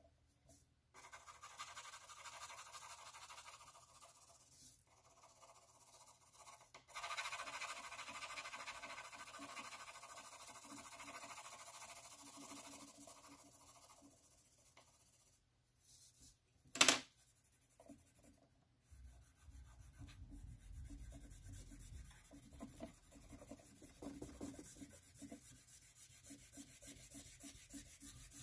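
Graphite pencil shading on paper: long, steady scratching strokes, with one sharp click about halfway through. Toward the end the pencil moves in shorter, repeated back-and-forth strokes.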